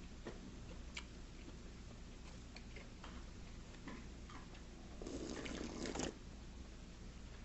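A few light clicks of a spoon and chopsticks against dishes, then, about five seconds in, a second-long slurp of soup drunk straight from the bowl.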